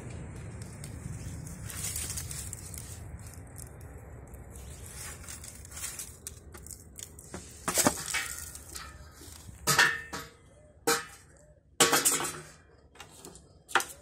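A low steady rumble, then about five sharp clinks and knocks of hard objects, spaced a second or two apart in the second half.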